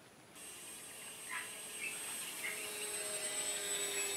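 The RC electric motor glider's 2212 2200 kV brushless motor and 6×4.5 propeller running in flight, heard as a high thin whine with a lower hum that slowly drops in pitch, growing louder after a short quiet start. A few bird chirps about a second and two seconds in.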